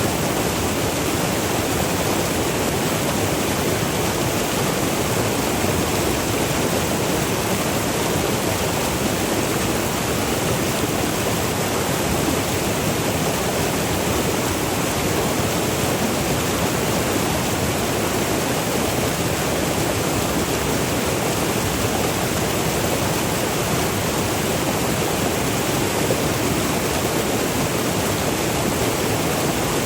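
Virgin River water rushing and pouring over small waterfalls: a steady, even rush with no pauses or changes.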